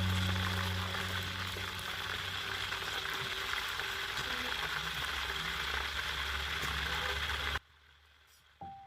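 Food cooking in a pan, a steady sizzling hiss that cuts off suddenly near the end. Piano music starts just after.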